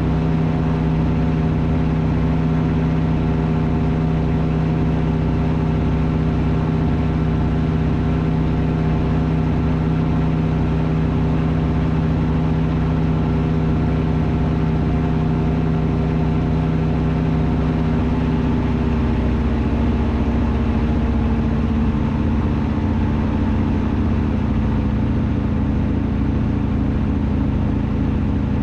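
SeaRey amphibian's pusher engine and propeller droning steadily, heard from the cockpit in low flight. About 18 to 22 seconds in, the drone drops a little in pitch.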